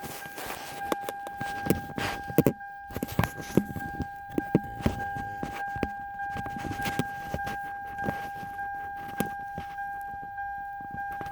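Car key and keyring rattling and clicking as the key is worked in a 2000 Toyota Celica's ignition lock cylinder that will not turn, in irregular sharp clicks and knocks. A steady high tone sounds underneath.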